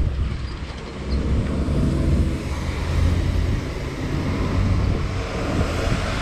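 A city bus driving past close by, its engine a steady low drone that grows louder about a second in, with road noise building toward the end.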